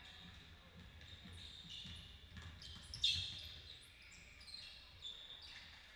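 Basketball game on a court: a ball bouncing and sneakers squeaking on the floor, with a sharp, loud sound about three seconds in.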